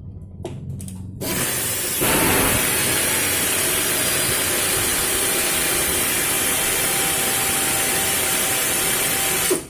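Compressed-air tool running: a loud, steady rush of air that starts about a second in, grows louder a second later and cuts off sharply near the end.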